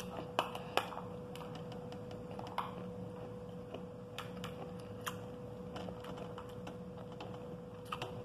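Metal spoon clicking and scraping against a clear plate while pomegranate seeds are scooped up, a scatter of sharp clicks, the loudest in the first second and more spread out after. A faint steady hum runs underneath.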